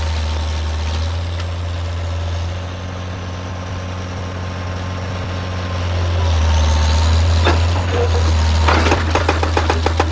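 Excavator's diesel engine running steadily, getting louder about six seconds in, with a fast, regular clatter of knocks starting near the end.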